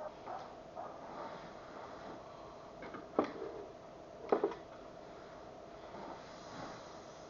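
A person shifting about on a bed: soft rustles of bedding over a faint steady hum, with two brief sharp clicks a little over a second apart midway.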